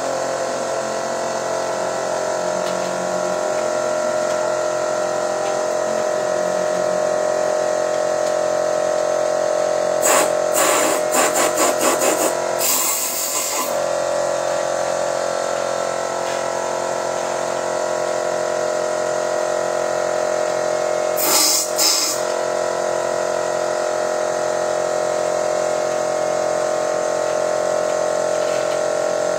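Steady machine whine during engine carbon cleaning. About ten seconds in there is a quick run of short hissing blasts from an air hose, then a longer hiss. Two more short blasts come a little past twenty seconds.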